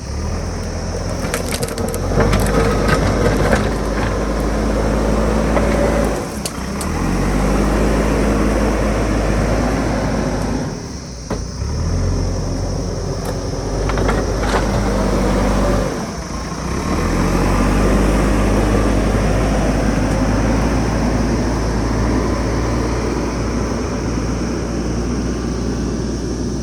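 Diesel engine of a JCB backhoe loader working under load, its note dropping briefly and picking up again about every five seconds as it digs. In the first few seconds there is crunching and cracking of soil and rock.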